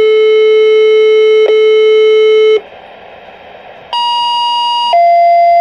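Fire dispatch two-tone paging tones coming through a Uniden BC75XLT scanner's speaker. A long steady tone cuts off about two and a half seconds in, static hiss follows for just over a second, then a short higher tone sounds and, about five seconds in, a long lower tone begins: the tone sequence that alerts a station's pagers to a call.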